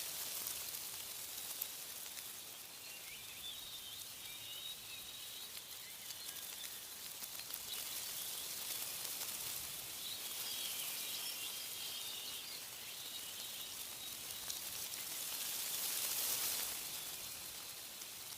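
Wind rustling through tree leaves in gusts that swell and ease off, dropping back about a second before the end, with faint bird chirps behind it.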